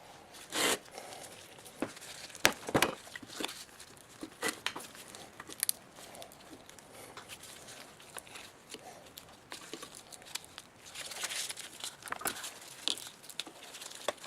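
Irregular clicks, knocks and rustling scrapes of hand work on the motor's parts, with the sharpest knocks in the first three seconds and a longer stretch of scraping near the end.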